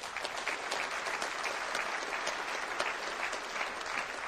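Audience applauding: many hands clapping in a steady, even round.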